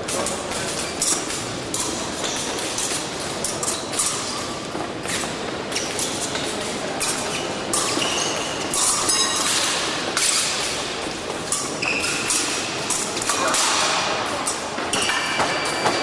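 Épée fencing bout: steel blades clinking against each other and fencers' feet stamping on the piste, a steady run of clicks, thuds and short metallic pings that echo in a large hall.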